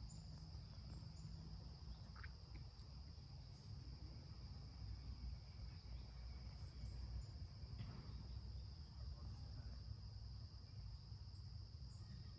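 Faint, steady high chirring of crickets in a continuous chorus, over a low rumble.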